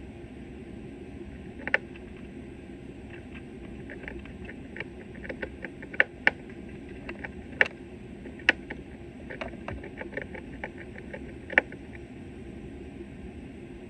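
Irregular light clicks and ticks, with a handful of sharper, louder clicks, over a steady low hum.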